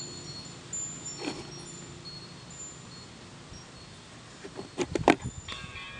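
Faint high tinkling tones over low room hum, then a quick run of sharp thumps a little past the middle, the loudest sound here, and music starting just before the end.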